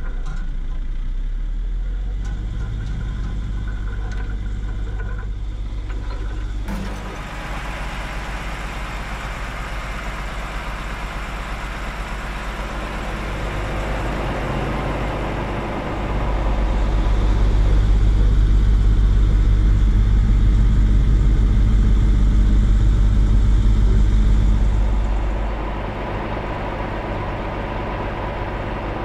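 Diesel engine of a lorry-mounted hi-ab crane running steadily as it powers the crane's hydraulics. About halfway through it runs harder and louder for roughly ten seconds, then settles back, as the crane takes the weight of the small Ruston diesel locomotive.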